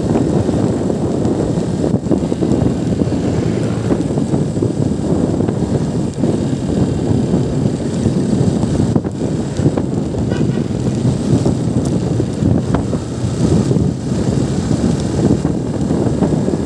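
Motorcycle riding steadily along a road: wind buffeting the microphone over the rush of the ride.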